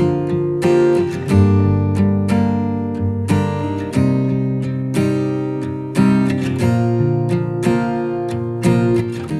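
Background music: an acoustic guitar strumming chords, a new strum roughly every second.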